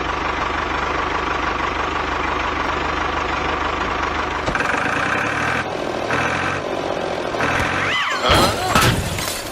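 Mini tractor's engine sound running steadily with a fast low throb for about four and a half seconds. It then changes to higher tones pulsing on and off, with a few sliding, whistle-like tones near the end.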